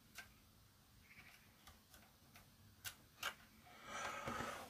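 Near silence with a few faint, isolated clicks, three in all, and a faint hiss of noise in the last second.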